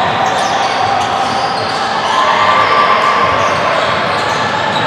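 Basketball game in play in a gym: the ball bouncing on the hardwood court, sneakers squeaking in short high chirps, and players calling out, all echoing in the hall.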